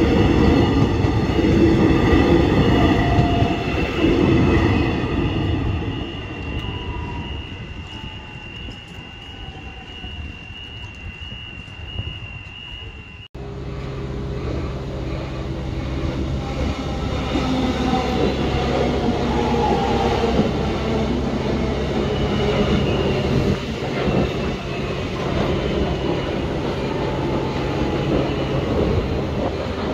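Electric suburban train passing close by, with wheel and rail noise, a high steady squeal and whining motor tones, fading over the first dozen seconds. After a sudden cut, an electric train at the platform gives off a steady low electrical hum with faint motor whine.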